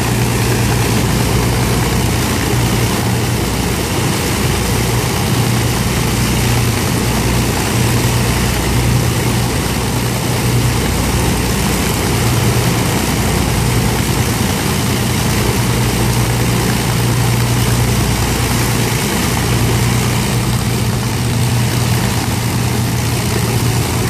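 The four Rolls-Royce Merlin V12 engines of an Avro Lancaster bomber running together at low power, a steady deep drone with the whirr of the propellers.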